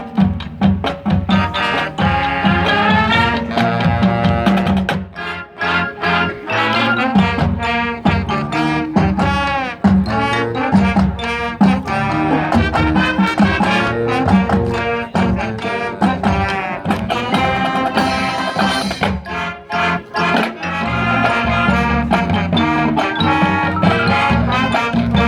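High school marching band playing its field show: brass melody over drumline percussion, with steady drum hits throughout.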